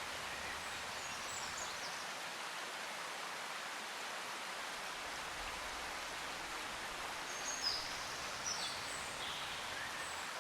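A steady, even hiss like running water or rain, with a few faint high chirps like birdsong about a second in and again near the end.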